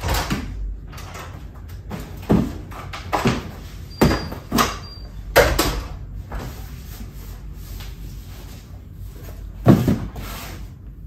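An apartment front door being unlatched, opened and shut with a series of clunks and knocks, as a long cardboard box is carried in. A single loud thud a little before the end as the box is set down on a wooden table.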